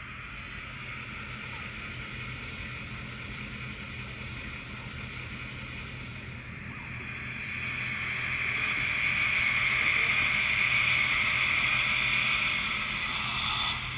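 OO9 narrow-gauge model diesel shunter running along the layout track, its small motor and wheels making a steady noise that grows louder from about halfway through and drops away just before the end.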